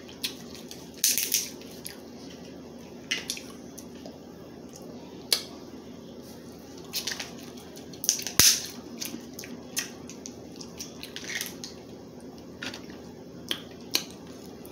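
Crab leg shells cracking and snapping as they are broken open, in short, irregular sharp cracks, the loudest about eight seconds in.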